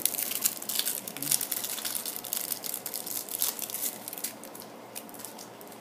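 Thin clear plastic wrapping crinkling and crackling as it is pulled off a small stack of trading cards, a dense run of small crackles that thins out near the end.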